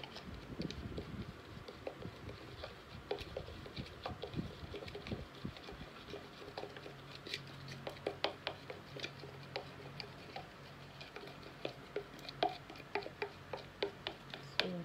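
A stirrer tapping and scraping against a plastic measuring jug while mixing powder into glycerin: many light, irregular clicks and scrapes.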